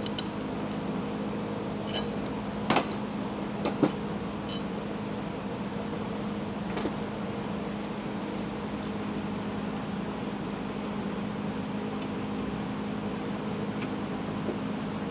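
Small metal parts of a three-point lever arm clicking and clinking as the arm is taken apart by hand, nuts, washers and bushings coming off; two louder clinks about a second apart come near the three- and four-second marks. A steady machine hum runs underneath.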